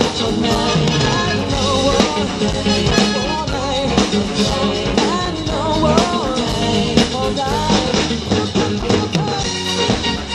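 Live rock band playing an upbeat song: drum kit, bass and electric guitar, with a sliding melody line over the top.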